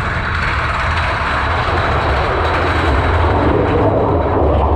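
Big Thunder Mountain Railroad mine-train roller coaster running along its track: a loud, steady rumble of the train's wheels on the rails, heard from onboard.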